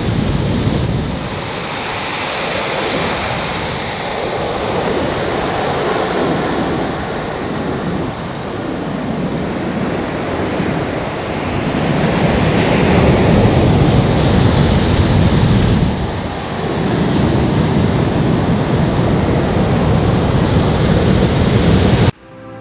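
Ocean surf breaking and washing up a sandy beach, a steady rush that swells and eases as the waves come in, with wind rumbling on the microphone. It cuts off abruptly near the end.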